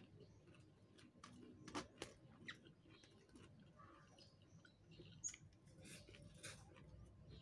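Faint eating sounds: chewing, and fingers mixing rice on a metal tray, heard as scattered small clicks and ticks.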